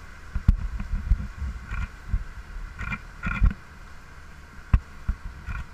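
Tour boat under way at sea: a steady low rumble of the engine and the rushing wake, broken by several irregular low thumps.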